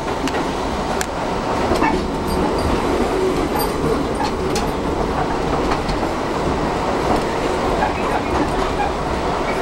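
Ride inside a New York City 7 subway train car running on elevated track: a steady rumble of the wheels on the rails, with occasional clicks.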